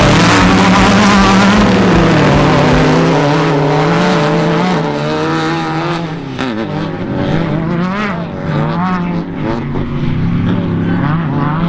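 Desert off-road race vehicle's engine running hard, its pitch rising and falling with throttle and gear changes. Loudest over the first few seconds, then easing off about halfway through.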